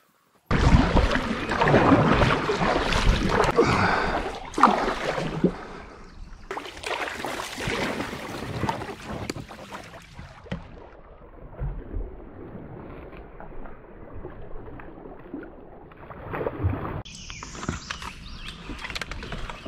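Kayak moving through swift river current: water rushing and splashing around the hull, with paddle strokes.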